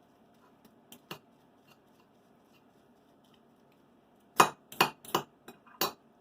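Metal forks clinking against a dish while shredding cooked chicken breasts: two light clicks about a second in, a pause, then a quick run of louder, sharper clinks near the end.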